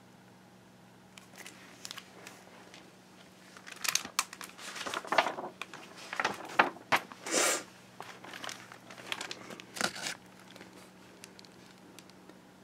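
Handling noise as a hardcover picture book is moved about and opened to its first page: irregular bursts of crinkling and rustling, heaviest in the middle and dying away near the end.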